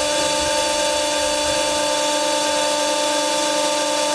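Bosch EPS 815 diesel test bench running, a steady mechanical whine at an unchanging pitch over a strong hiss.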